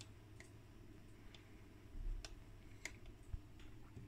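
Faint scattered clicks, about six in four seconds, with a couple of soft low thumps in the second half, over a steady low hum.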